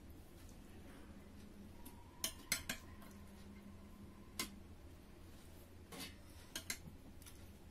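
Metal spoons and forks clinking against plates and a serving dish as food is served and eaten: about seven sharp clinks, several in quick pairs.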